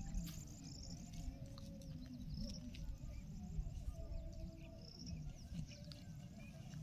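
Faint rural outdoor ambience: scattered short, high bird chirps over a low, steady rumble.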